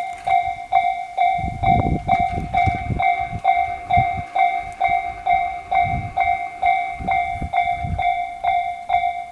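Electronic level-crossing warning bell of the Tobu Tojo Line type (Tobu sound C), ringing at an even pace of about two and a half strikes a second. A Tobu 60000 series train passes under it, its wheels rumbling low and heaviest about one and a half to three seconds in, with further rumbles around six and eight seconds in.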